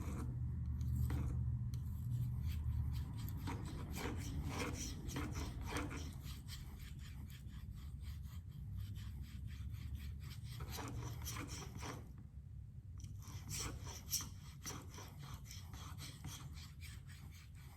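Spyderco Delica 4's K390 steel blade drawn in quick repeated strokes across a Venev 1200F diamond waterstone under light pressure, a rasping scrape with a short pause about two-thirds through.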